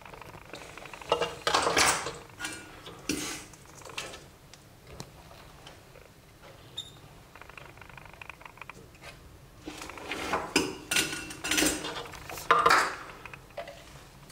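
Irregular clicks, knocks and rattles of hand work on a loudspeaker crossover board: the board and its capacitors being handled against the cabinet, and tools being picked up and used. The clatter comes in two busy spells, about a second in and again from about ten seconds in.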